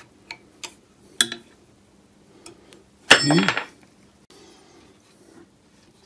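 A few sharp, separate metallic clicks and clinks from an Allen key and hands working on the cast-iron bearing caps of a Myford ML7 lathe headstock as the caps are loosened until the spindle can turn. A faint, brief rubbing follows a little after four seconds as the spindle is rolled by hand in its plain bearings.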